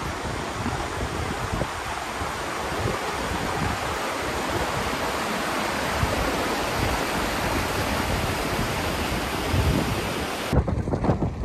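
Mountain river rushing over rocks, a loud, steady rush of water. Near the end it cuts off abruptly to gusts of wind buffeting the microphone.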